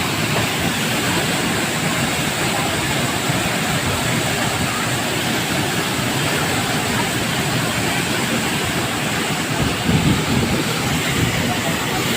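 Steady rushing roar of a waterfall, with a short louder low rumble about ten seconds in.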